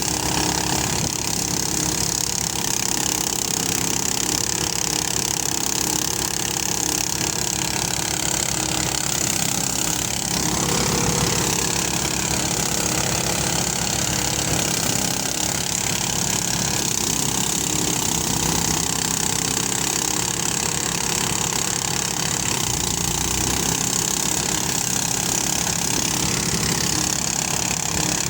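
Motorised rice thresher running steadily, its engine chugging with a rapid even beat under a broad mechanical hiss. The sound swells briefly about ten seconds in.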